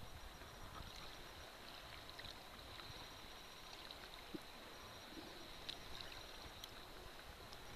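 Faint lapping of calm shallow sea water around a wading angler, with a few soft scattered ticks.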